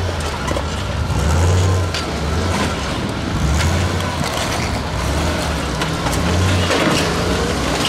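Custom-built 4x4 trial buggy's engine revving in short bursts, swelling and dropping about once a second as it crawls up rock ledges, with scattered sharp knocks from the tyres and rocks.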